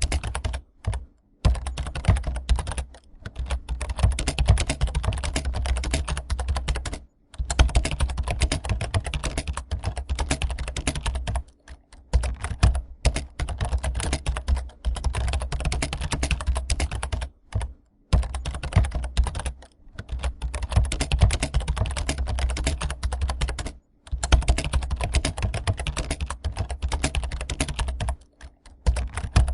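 Fast continuous typing on a computer keyboard, rapid key clicks in runs of several seconds with brief pauses between them.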